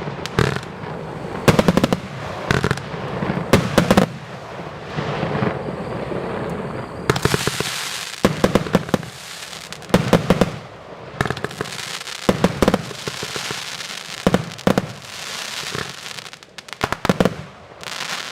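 A 232-shot firework cake firing: quick clusters of sharp shots, with stretches of steady hiss between the volleys.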